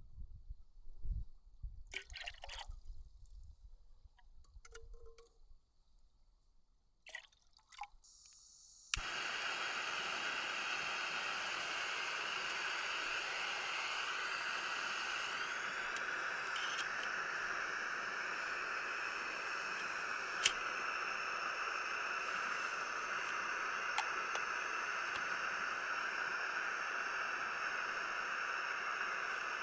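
Small creek flowing: a steady, even rush of running water that starts abruptly about nine seconds in, after a stretch of faint scattered knocks and rustles. Two single sharp clicks stand out over the water.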